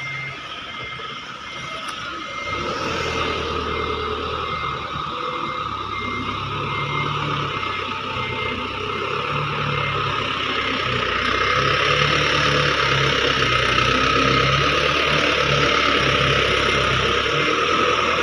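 Loaded Isuzu dump truck's diesel engine running as the truck creeps along a muddy dirt track with a full load of soil, growing louder as it approaches and loudest from about twelve seconds in. A fast, high, pulsing tone runs under it for the first two-thirds.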